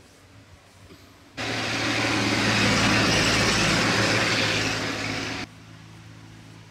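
A motor vehicle passing close by: a loud rush of engine and road noise over a low hum. It starts suddenly about a second and a half in, swells and eases off, and cuts off abruptly about four seconds later.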